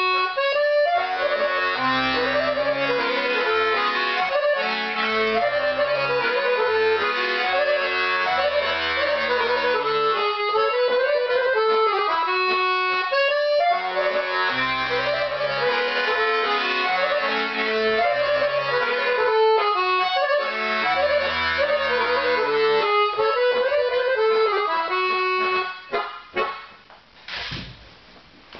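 Piano accordion playing a Romanian-style folk tune: a quick, ornamented melody on the right-hand keys over a rhythmic bass-and-chord accompaniment. The playing stops about 25 seconds in, followed by a few knocks.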